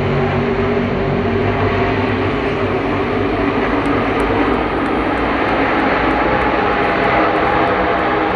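The field of NASCAR stock cars' V8 engines running together as the pack circles behind the pace car, a loud, steady drone of many engines at once with several wavering pitches.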